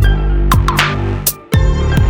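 Electronic background music with a heavy bass line and a steady beat of kick drums and hi-hat hits, with a brief drop-out about one and a half seconds in.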